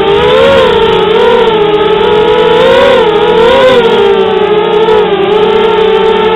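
FPV quadcopter's electric motors and propellers whining loudly and continuously, the pitch wavering up and down as the throttle changes.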